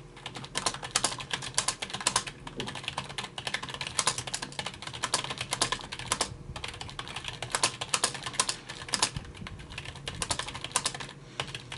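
Continuous typing on an Anker Ultrathin backlit wired membrane keyboard: a rapid run of key clicks, with a couple of short pauses. The keys sound like any other membrane keyboard and are not loud.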